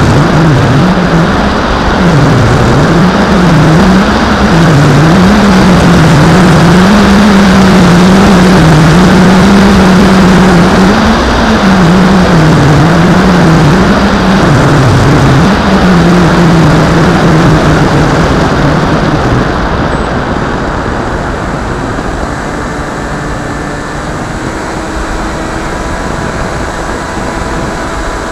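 Bixler RC plane's electric motor and pusher propeller droning, its pitch rising and falling with the throttle, over loud wind rush on the plane's own camera. About twenty seconds in the drone fades and the sound grows quieter, leaving a faint steady hum.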